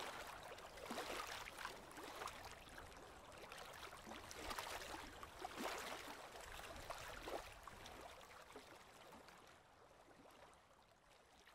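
Small river waves lapping and washing on a sandy shore, faint, in irregular swells, fading out near the end.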